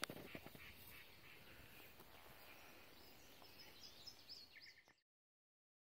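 Near silence: faint outdoor ambience with a few faint bird chirps about four seconds in, then the sound cuts off to dead silence about five seconds in.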